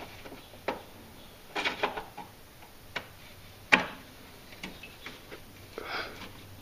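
Scattered light metal clicks and knocks as a steel reinforcement plate is worked down into a Jeep Cherokee XJ's frame rail, with one sharper knock a little past halfway.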